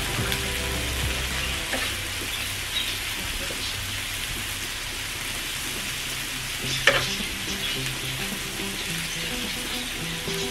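Meat and vegetables sizzling steadily on a tabletop grill pan as they are turned with tongs, with one sharp clack about seven seconds in.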